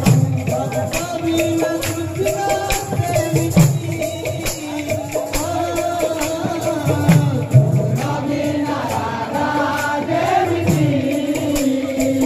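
Kirtan devotional music: a male singer singing through a microphone, with other voices joining, over quick, continuous clashing of brass hand cymbals.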